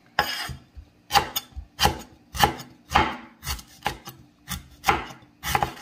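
Steel cleaver chopping on a wooden cutting board: about a dozen sharp knocks, roughly two a second.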